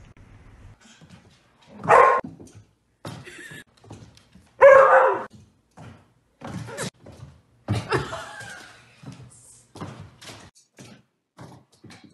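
Dog barking in short barks, the two loudest about two seconds and five seconds in, followed by a run of shorter, fainter barks. Light thumps of a dog jumping up against a wooden door come in between.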